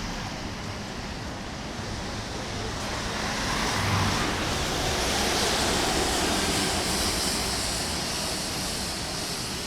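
A vehicle passing on a wet street, its tyres hissing on the wet road: the sound swells about three seconds in, is loudest midway, and fades near the end.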